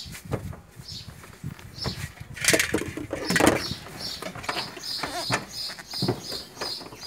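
Plastic bags rustling and crinkling as they are handled, with small knocks of objects being moved about, loudest a little past the middle. A repeated high chirp runs alongside, about once a second at first and about three times a second in the second half.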